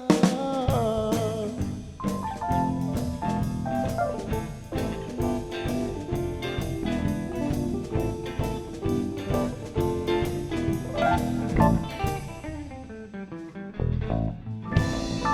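A band playing an instrumental rockabilly passage with no vocals: drum kit keeping a steady beat under guitar and bass lines. About twelve seconds in the playing thins out, and the drums come back in near the end.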